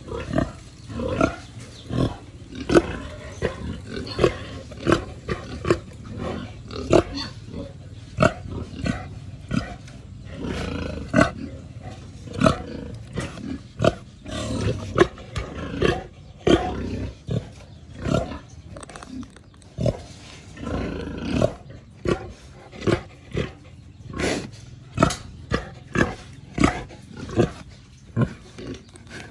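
Hungry sow (domestic pig) calling for food with short, loud grunts and squeals in quick succession, about one or two a second.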